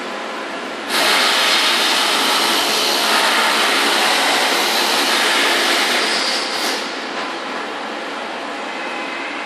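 Steady industrial machinery noise with a louder hiss that cuts in suddenly about a second in and dies away around seven seconds.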